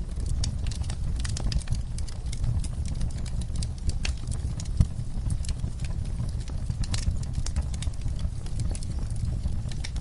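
Wood fire burning in a fireplace, crackling with frequent irregular sharp pops over a low steady rumble of the flames; one louder pop about five seconds in.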